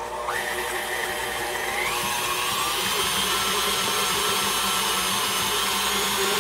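Electric stand mixer starting up, its motor whining, then rising in pitch and getting louder about two seconds in as the speed is turned up, and running steadily after that. It is beating peanut butter into a butter and powdered-sugar mixture.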